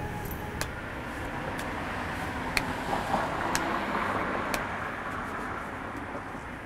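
A car passing by, its noise swelling over a few seconds and then fading, with sharp ticks about once a second.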